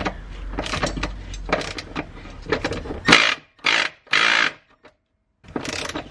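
Cordless power driver with a 5 mm hex bit, run in a string of short stop-start bursts on the fuel filter's clamp bolt. It is making odd noises as the tool struggles.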